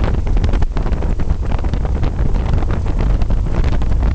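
Aviat Husky A-1C light aircraft's engine and propeller running at low power while rolling on the ground after landing, heard from inside the cabin: a steady low rumble with wind buffeting the microphone and frequent small knocks and rattles.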